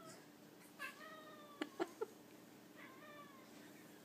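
Domestic cat meowing twice, each call drawn out and falling in pitch, the first about a second in and the second near three seconds. Three short clicks fall between the calls. The calls are the cat's reaction to a person's sneeze, which the owner takes as the cat saying 'bless you'.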